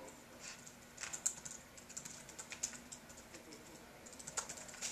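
Typing on a computer keyboard: quick, irregular key clicks that come in bunches, densest about a second in and again near the end.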